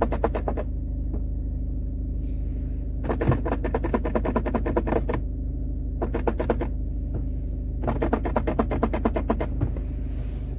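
Squeaking inside a Citroën C4/DS4 cabin: bursts of rapid, chattering squeaks come and go several times over the car's steady low engine and road drone.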